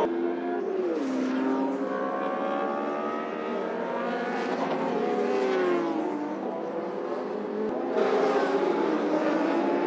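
Racing superbike's inline-four engine, the Honda CBR1000RR, revving hard as it accelerates out of a corner. Its pitch climbs through the gears and drops on the shifts.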